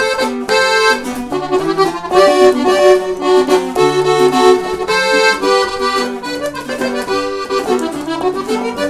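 Instrumental break in a corrido, the accordion playing the melody over a moving bass line.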